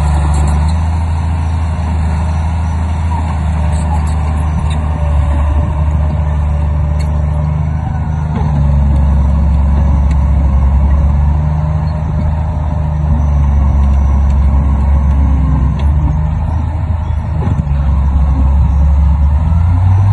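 Heavy diesel engine of earthmoving machinery running loud and steady, its revs rising and easing several times as it works under load.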